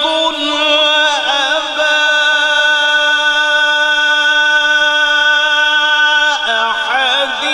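A male qari reciting the Quran in melodic tajweed style. His high voice holds one long steady note for about five seconds, with quick wavering melodic turns about a second in and again near the end.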